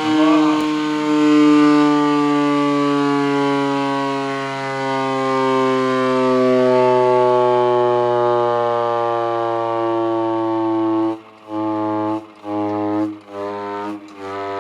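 Tokyo Siren Co. SH-180 hand-cranked ship's fog horn sounding one long blast, its pitch sinking slowly over about eleven seconds. It then gives about four short blasts in quick succession near the end.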